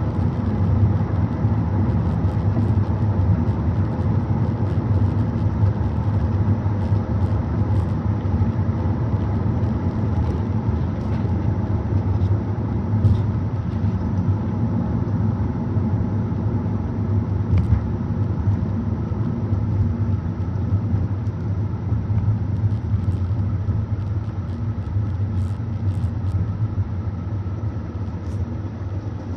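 Steady road noise inside a moving car: a low rumble of tyres and engine, growing a little quieter near the end.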